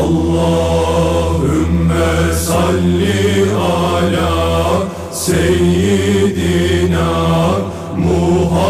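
Devotional vocal chanting in long held phrases over a steady low drone, breaking briefly about five seconds in and again near the end.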